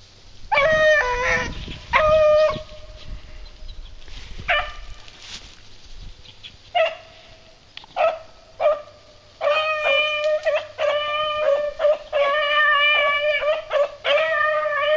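Beagles baying as they run a rabbit, with long drawn-out howling calls. At first the calls are a few, spaced out; from about halfway through they come in a nearly unbroken string.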